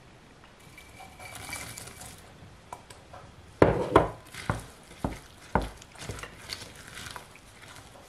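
Wooden spoon stirring chopped walnuts into thick banana bread batter in a mixing bowl, knocking against the side of the bowl in a run of sharp taps from about halfway through, roughly two a second.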